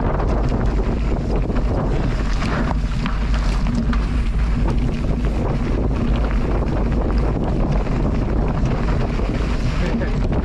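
Loud, steady wind buffeting the microphone as a low rumble, with many small clicks and rattles scattered through it.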